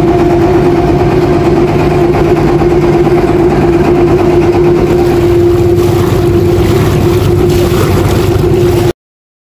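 The engine of a motorized river boat running steadily at cruising speed, a loud, even drone with a steady hum. It cuts off abruptly about nine seconds in.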